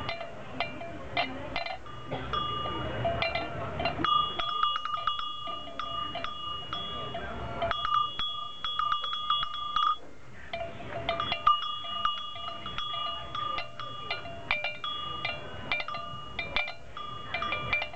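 Antique Burmese cast-metal animal bells in a stand, swung by hand so their clappers clank rapidly against the walls. Each run leaves a clear, ringing tone: a lower-pitched bell in the first few seconds, then a higher-pitched one ringing in runs of a few seconds with short pauses.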